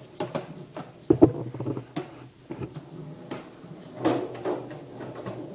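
Skateboard knocking and clattering on a concrete floor and a plywood board, with the sharpest knock about a second in and lighter ones after it. A longer scrape about four seconds in, as the board rides onto the plywood.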